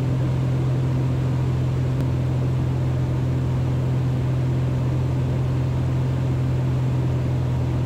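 Cessna 182 Skylane's piston engine and propeller droning steadily, held at a constant approach power setting.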